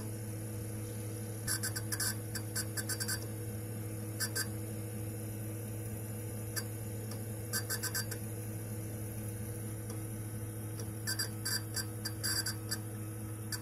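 Western Digital hard drive creaking and crackling in short bursts of rapid scratchy ticks, several times, over the steady hum of the running computer. These are unhealthy sounds that the owner takes for a failing drive. He hears them when it reads many small files.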